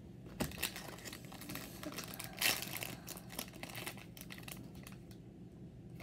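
Plastic candy wrapper crinkling as it is handled and gummy candies are taken out of it: a run of sharp crackles, loudest about halfway through.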